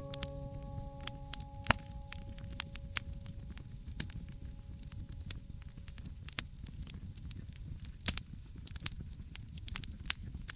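Wood fire crackling, with irregular sharp pops over a low rustle. In the first few seconds the last held chord of soft music fades away.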